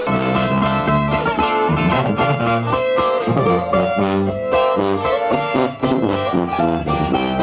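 A small band playing live without singing: acoustic guitars, one of them a twelve-string, strumming and picking over an electric bass, while a sousaphone-style tuba carries the bass line in held low notes.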